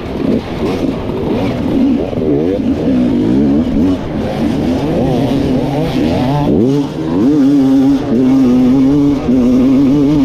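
Dirt bike engine revving, the pitch rising and falling quickly over and over, then sweeping up sharply and holding a steady high rev through the second half.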